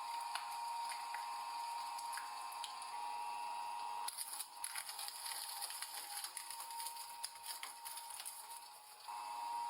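A machine crushing something, squishing and crackling over a steady whine.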